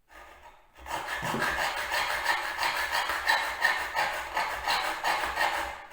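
A hand saw cutting a slot across the head of a screw, in quick, even back-and-forth strokes of about three a second. The rasping scrape is the blade biting into the screw head to form a screwdriver slot. It starts faintly and then runs loud from about a second in.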